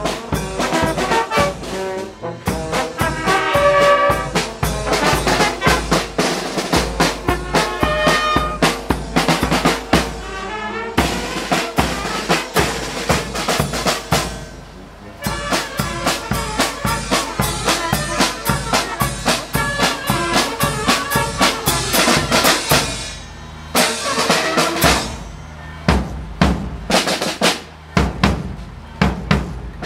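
Brass band playing live, trumpets and trombones over a snare drum beat, with the brass dropping out for a moment twice and leaving the drums.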